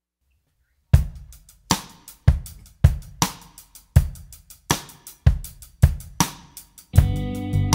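Music: silence for about a second, then a drum beat of sharp kick and snare strikes with cymbals. Sustained bass and chord tones come in near the end.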